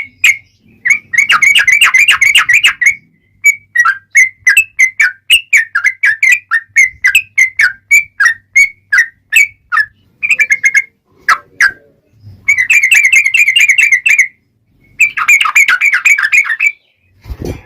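Yellow-vented bulbul (trucukan) song played as a lure. Fast chattering trills alternate with a run of separate bubbly notes, about two a second. A brief low thump comes near the end.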